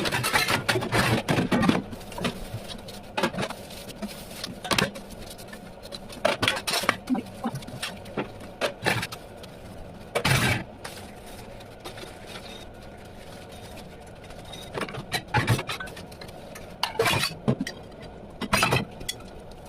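Dishes being washed by hand: irregular clatter and scraping of dishes and utensils, in bunches with pauses between, over a steady low hum.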